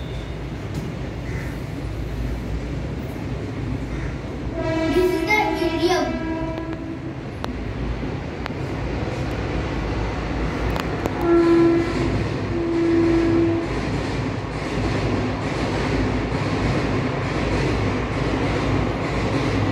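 A train rumbling steadily past, its horn sounding once for about a second and a half about five seconds in, then twice more around eleven to thirteen seconds in.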